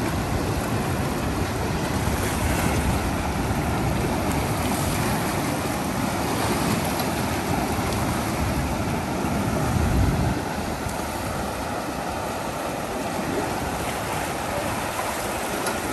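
Wind buffeting the microphone: a steady rushing noise with a stronger low gust about ten seconds in.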